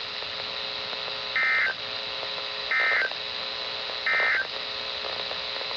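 NOAA Weather Radio digital alert data: three short SAME data bursts about 1.3 seconds apart, the end-of-message code that closes a warning broadcast, over steady radio hiss and faint hum.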